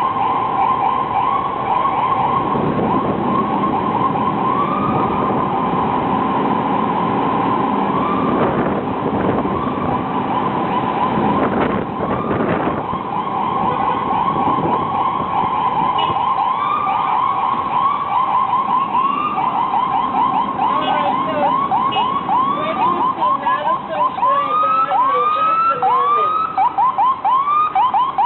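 Ambulance siren in a fast yelp, about four sweeps a second, over the rumble of stopped traffic. Near the end the sweeps grow wider and more spaced out.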